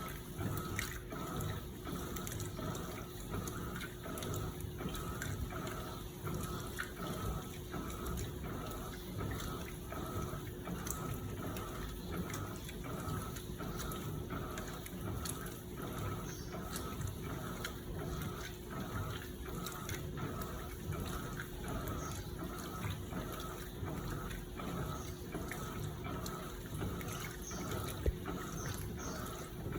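Electrolux LPE16 washing machine working a load of blankets in water: rhythmic sloshing, a bit more than one stroke a second, over a steady hum. A single short click sounds near the end.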